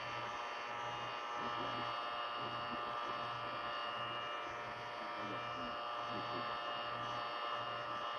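Electric heat gun running steadily, its fan motor giving a continuous whine made of several fixed tones, as it blows hot air over the phone to soften the screen's glue.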